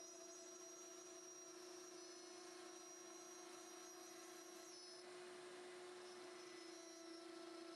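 2.2 kW water-cooled CNC spindle running at speed under VFD control while cutting wood: a faint, steady whine with higher overtones over a light hiss.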